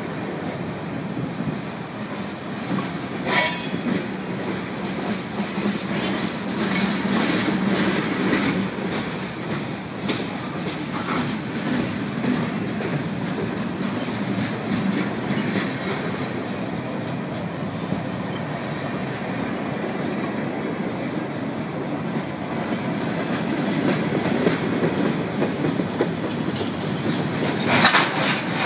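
Freight train cars rolling past with a steady rumble and wheels clacking over the rail joints. A sharp metallic clank rings out about three seconds in and another near the end.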